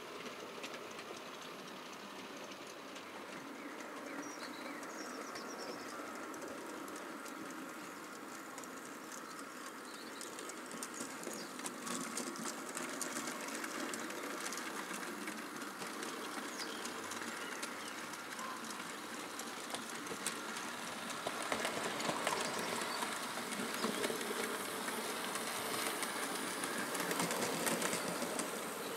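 OO gauge model train running on the layout track: a small electric motor's steady whir with the wheels clicking over the rail joints, getting louder about two-thirds of the way through.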